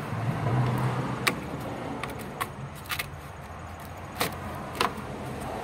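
Several sharp plastic clicks and knocks as wiring harness connectors are handled and unplugged in the engine bay, over a low steady hum.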